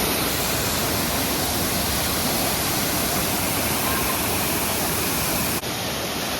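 Waterfall's rushing water, a steady, even rush at close range. It drops a little in level near the end, then carries on.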